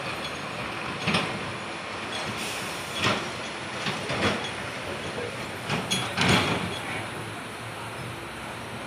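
Moving passenger train heard from an open coach door: a steady rumble of the wheels on the rails, broken by several sharp clacks as they pass over rail joints, the loudest just after six seconds in.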